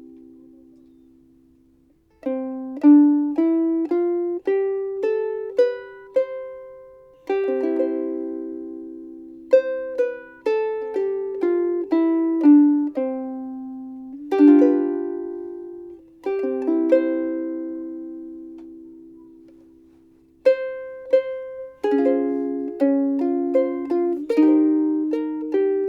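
Seilen SLVS-810 soprano ukulele, Brazilian rosewood body, played solo: picked melody notes mixed with strummed chords. A chord rings out and fades twice, near the start and again about two thirds of the way through, before the playing resumes.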